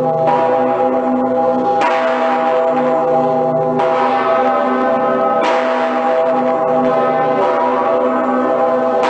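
Cologne Cathedral's great swinging bells, St. Peter's Bell (the Decke Pitter) joined by the Pretiosa, ringing together. There are about five strokes, unevenly spaced 1.5 to 2 seconds apart, each over a deep, long-sustaining hum that carries over into the next.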